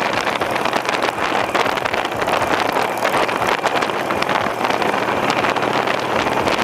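Wind rushing over the microphone of a Harley-Davidson motorcycle riding steadily at speed, with the engine running faintly underneath.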